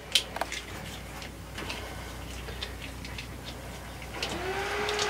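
Scattered small clicks and crackles of corrugated plastic split-loom tubing being handled and pushed into a hole in wooden trim. About four seconds in, a steady machine hum starts up.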